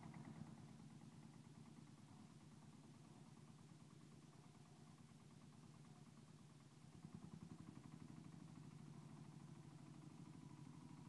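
Small farm tractor's engine running at low speed as it tows a loaded trailer, heard faintly as an even pulsing chug; it picks up slightly about seven seconds in.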